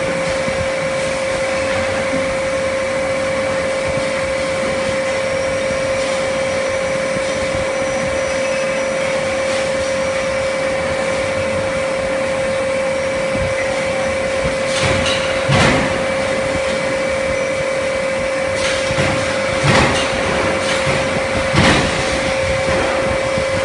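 High-frequency induction brazing machine running while heating the bottom of a die-cast aluminium pot: a constant mid-pitched hum over a steady hiss. A few short knocks come in the second half.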